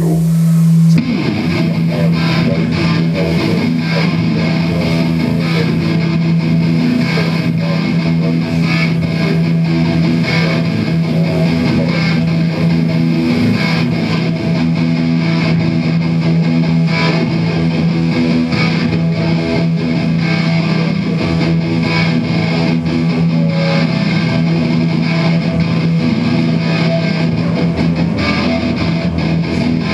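A live rock band plays with electric guitar in front, over a sustained low droning note.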